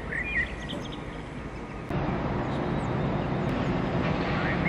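Outdoor city ambience: a steady hum of distant traffic, a little louder from about two seconds in, with a few short bird chirps early on and again near the end.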